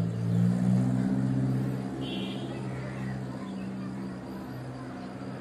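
A low, steady droning hum with a definite pitch, shifting up about half a second in, then holding and easing off slightly toward the end. There is a brief higher tone about two seconds in.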